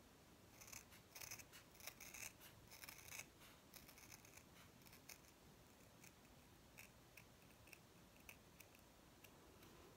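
Scissors making a run of small faint snips through folded stiff craft felt, trimming it down; the snips come thick for the first three seconds or so, then sparser.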